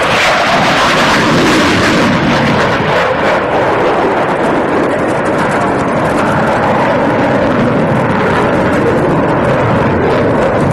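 RAF Tornado ADV's twin RB199 turbofan engines roaring as the jet passes low and climbs away. The roar is loud and bright for the first couple of seconds, then carries on as a steadier, duller roar.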